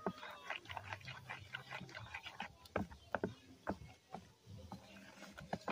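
Wooden spoon stirring a milky breadfruit mixture in a plastic bowl, with irregular knocks and scrapes of the spoon against the bowl.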